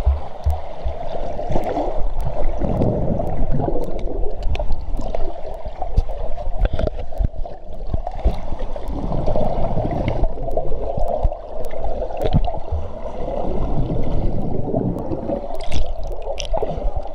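Muffled water churning and bubbling, heard from underwater, with a heavy low rumble and scattered faint clicks.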